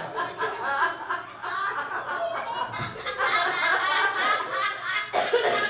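Audience laughing and chuckling, many voices together, with some murmured talk among them.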